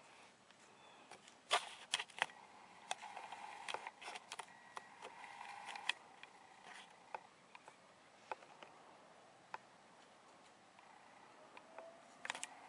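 Scattered sharp clicks and light rustling, several close together in the first few seconds, then sparser, with another cluster near the end, over a faint steady hum.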